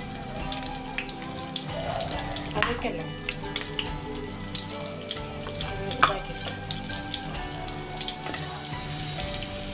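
Masala-coated climbing perch (karippidi) pieces frying in hot oil in a pan: a steady sizzle with frequent small crackles and pops, two sharper pops standing out about two and a half and six seconds in.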